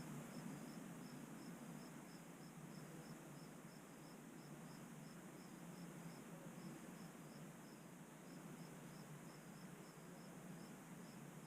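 Near silence, with a faint cricket chirping steadily at about two chirps a second.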